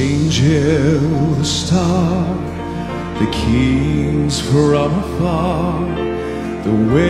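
Southern gospel male vocal quartet singing a slow song with vibrato, over sustained piano chords that change about halfway through and again near the end.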